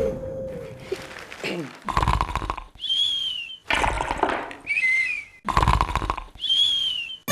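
A man snoring in three even rounds: each is a rasping snore followed by a short, high whistle that rises and falls.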